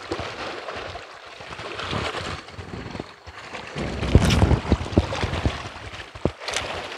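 Wind on the microphone and small waves lapping. About four seconds in comes a louder swish with a low rumble as the squid-egging rod is jerked upward, followed by a few sharp clicks near the end.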